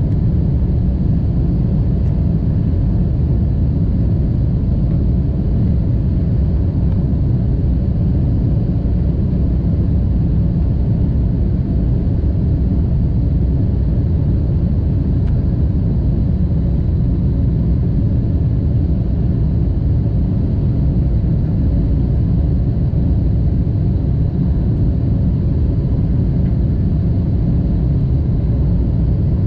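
Steady, deep cabin noise of a Boeing 747-8 in flight, its GEnx engines and the airflow heard from a window seat inside the cabin.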